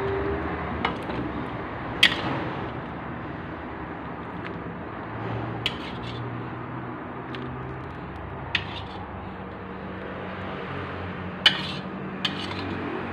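A metal spoon clinking against a pan and a ceramic plate while squash in coconut milk is served out, with about half a dozen sharp clinks at uneven intervals. A low steady hum runs underneath.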